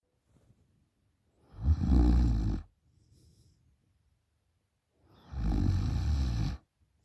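A woman snoring through an open mouth: two loud snores, each lasting just over a second, about three and a half seconds apart, with a faint breath after the first.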